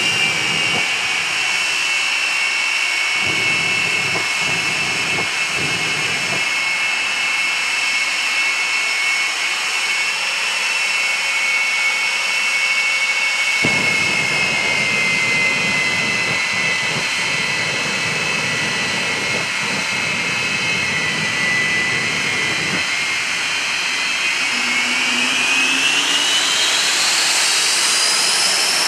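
Twin Rolls-Royce Bristol Viper turbojet engines of a jet-powered 1940 Ford fire truck running hard at a standstill. It is a loud, steady roar with a high whine that sags slightly in pitch and then climbs steeply near the end. Deeper rumbling comes and goes.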